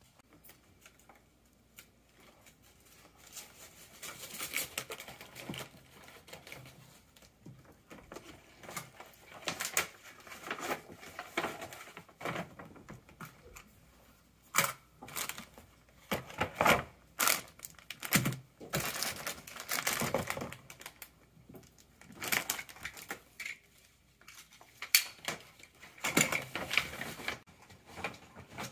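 Crinkling and rustling of metallic foil gift bags and plastic-wrapped toys being handled and packed, with irregular clicks and knocks as items are picked up and dropped in.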